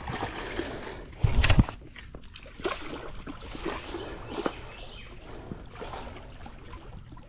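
A large catfish splashing and sloshing at the surface of shallow water at the bank as it is led in on the line, with one louder splash about a second and a half in and smaller splashes after.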